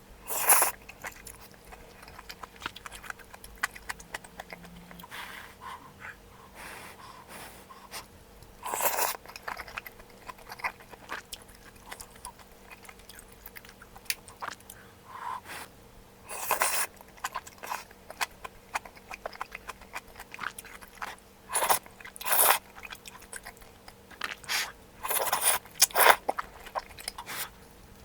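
A person eating malatang close to the microphone: chewing and biting with small clicks, and several louder bursts of under a second scattered irregularly throughout.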